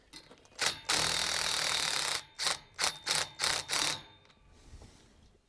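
Cordless Ridgid power driver tightening the bolt of a cable bracket on a steel pole: a brief blip, a steady run of about a second, then several short trigger bursts as the bolt snugs up.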